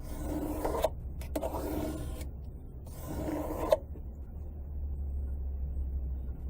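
Steel knife blade drawn across a sharpening stone: three rasping strokes a little under a second each, then the strokes stop and only a low hum remains.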